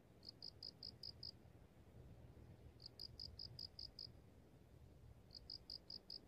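Faint cricket chirping: three short trills of six or seven quick high pulses each, repeating about every two and a half seconds.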